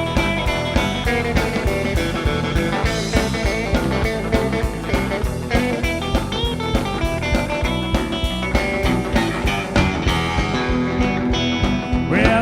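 Rockabilly band playing an instrumental break: electric guitar lead over a steady drum beat.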